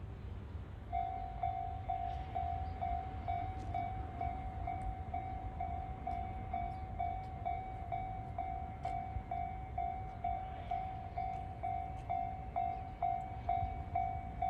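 Railway level-crossing warning bell ringing, an electronic ding repeating about twice a second, starting about a second in, over a low steady rumble.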